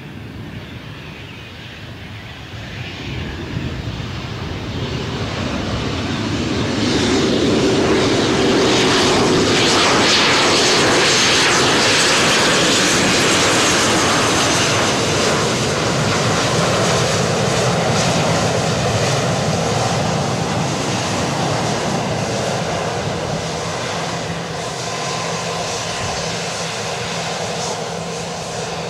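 Gulfstream G650 business jet's Rolls-Royce BR725 turbofans running at taxi power. The whine grows louder as the jet rolls closer, is loudest about a third of the way in, then eases off.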